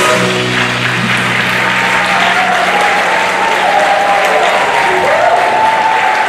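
Audience applauding as the band's final held chord dies out about a second in. A voice rises over the clapping from about two seconds in.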